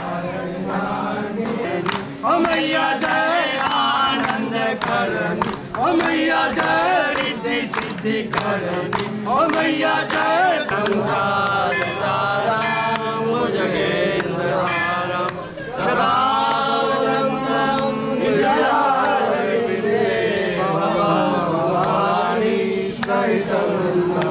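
Voices chanting a devotional mantra to music, held sung lines with frequent sharp percussive strikes.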